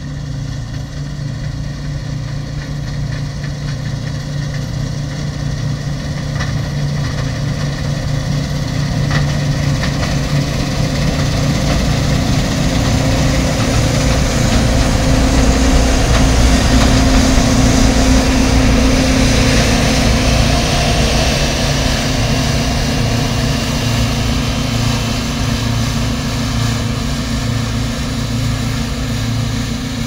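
John Deere 2254 combine harvester's diesel engine and threshing machinery running steadily while cutting wheat. It grows louder as the machine passes close about halfway through, then fades as it moves away.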